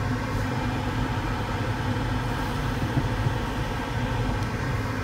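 Steady rush of air over the canopy inside a Duo Discus two-seat glider's cockpit, gliding unpowered with no engine running.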